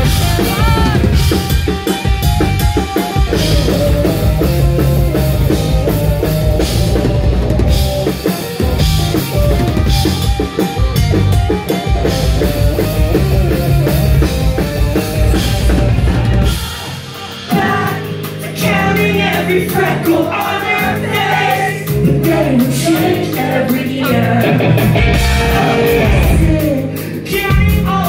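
Live post-hardcore rock band playing loud, with a driving drum kit, bass and electric guitars. About 17 seconds in the band drops out for a moment, then comes back in with the guitars to the fore.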